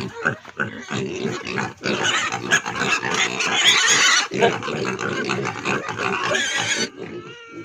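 Loud, continuous animal calls that cut off abruptly near the end.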